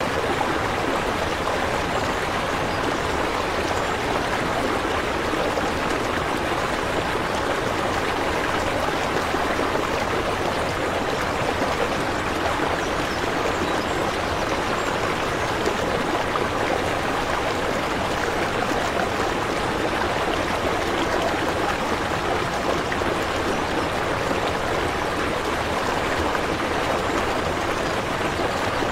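Steady rushing, splashing water, even and unbroken.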